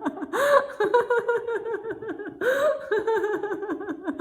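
A woman laughing in a laughter-yoga exercise, a fast run of 'ha-ha-ha' pulses at about six or seven a second, broken twice by a breathy rising whoop, about half a second and two and a half seconds in.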